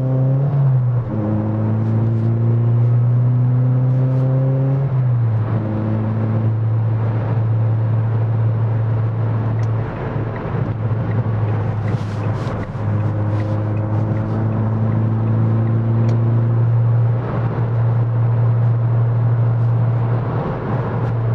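Ford Fiesta ST150's four-cylinder engine and exhaust droning, heard from inside the cabin while driving. The pitch climbs slowly under acceleration and drops back at gear changes about half a second and five seconds in, then holds steady at a cruise.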